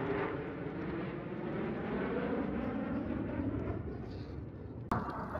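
Steady jet engine noise from a Thunderbirds F-16 flying overhead, with a sharp knock near the end.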